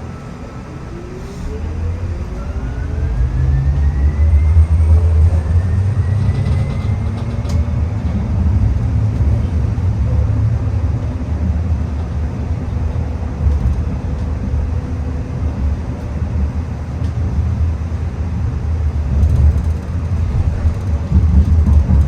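TriMet MAX light rail train underway: the electric traction motors whine, rising in pitch as the train accelerates over the first several seconds, then a steady low rumble of wheels on the rails as it runs at speed.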